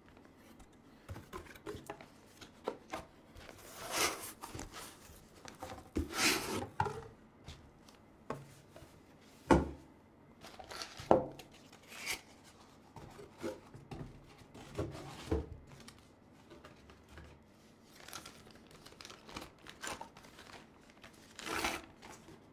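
Cardboard box, foam packing blocks and tissue paper rustling, scraping and rubbing as a camera lens is lifted out and unwrapped, with a few sharper knocks.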